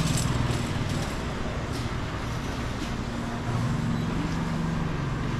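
Street noise with a motor vehicle's engine running steadily close by, a low hum, and a few light knocks and clicks over it.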